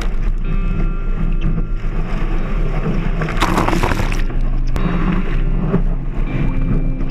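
Background music: sustained chords over a steady deep bass, changing chord a few times, with a brief hissing crash a little over three seconds in.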